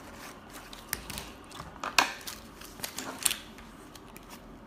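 Thin white cardboard box being opened and its contents handled: a run of light clicks, taps and paper rustles, the sharpest about one, two and three seconds in.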